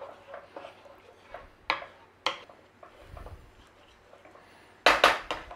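Wooden spatula stirring a thick cream sauce in a non-stick frying pan, with soft scraping and two sharp knocks against the pan. Near the end comes a quick run of louder knocks.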